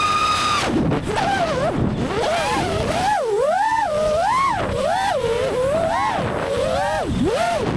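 FPV racing quadcopter's brushless motors whining, the pitch rising and falling rapidly over and over as the throttle is worked.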